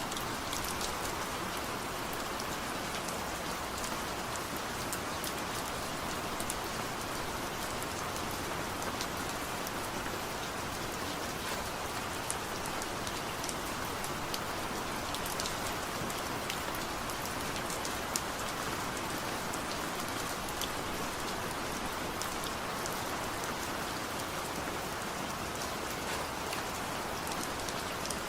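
Steady rain falling, an even hiss with scattered sharper drop ticks and no thunder.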